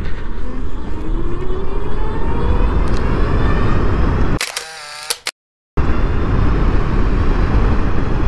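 Electric drive of a petrol scooter converted with a STARYA kit accelerating hard from a standstill: a faint whine rises steadily in pitch under heavy wind noise on the microphone. About four and a half seconds in it breaks off with a brief warbling tone and half a second of silence, then the wind and drive noise return.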